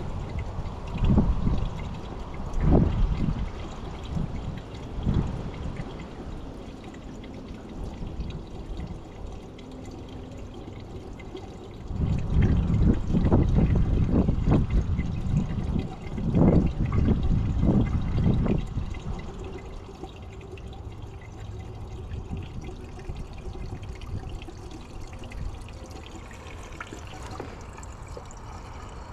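Diesel fuel trickling and pouring into the mini skid steer's fuel tank. Spells of low rumbling come and go, loudest from about twelve to nineteen seconds in.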